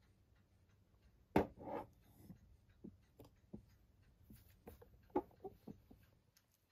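Faint handling of a paper poster: light rustles and small taps, with one sharp knock about a second and a half in.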